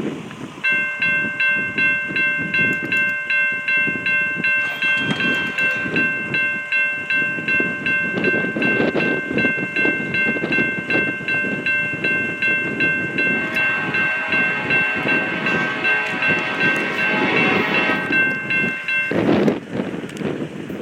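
Railroad grade-crossing warning bell ringing about three strikes a second, with the rumble of an approaching freight train. About two-thirds of the way through, a diesel locomotive's multi-note air horn joins. The bell and horn stop together shortly before the end, and a loud rush of train noise follows.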